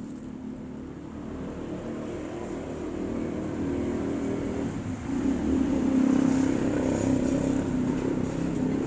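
A motor vehicle engine running close by, getting steadily louder and peaking about two-thirds of the way through.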